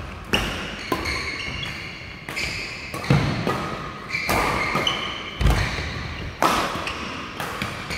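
Badminton rally: rackets strike the shuttlecock in quick exchanges, about one sharp hit a second, with heavy footfalls landing at two points and court shoes squeaking on the hall floor.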